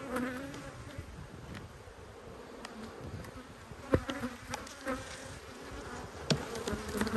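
Honey bees buzzing around an opened hive, from a colony that seems a bit grumpy. A few sharp knocks come from about four seconds in and again near the end.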